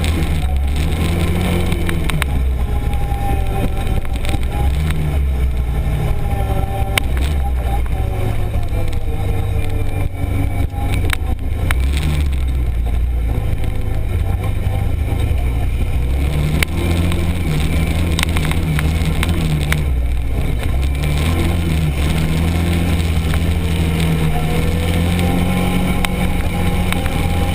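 Arctic Cat Prowler 1000 UTV engine running continuously while driving off-road, its pitch rising and falling as the throttle changes, with occasional sharp clicks and knocks from the ride over rough ground.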